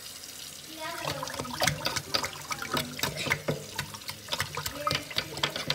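Water sloshing and splashing in a stainless steel sink as a hand stirs it around the drain, with irregular splashes from about a second in.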